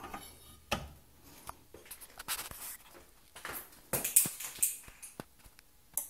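Handling noise: irregular light clicks, taps and rustles as the camera is moved about, with a sharper click at the very end.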